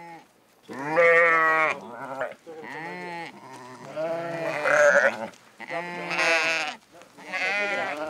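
Sheep and goats bleating, about six separate calls at different pitches, some with a wavering pitch.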